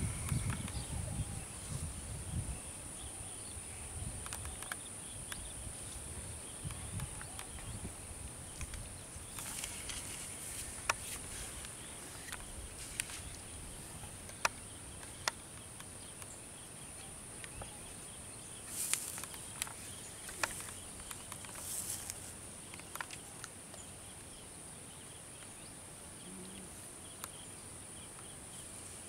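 Steady high-pitched drone of insects, with scattered small clicks and a few short rustles of close-by handling.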